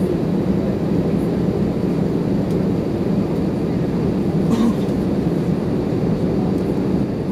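Steady low cabin rumble inside an Airbus A320 on the ground, its jet engines and air conditioning running. A brief knock sounds about four and a half seconds in.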